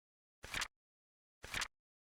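Flip clock sound effect: a short flipping click once a second, twice here, each a small tap followed at once by a louder flap, with silence between.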